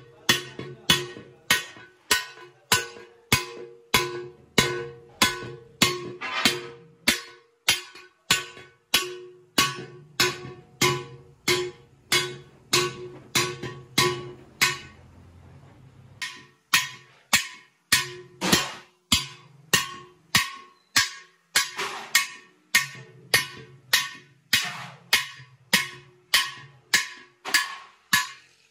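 Hand hammer striking a large aluminium cooking pot over a stake: steady, even blows about two a second, each with a short metallic ring from the pot. The hammering stops briefly about halfway through, then resumes at the same pace.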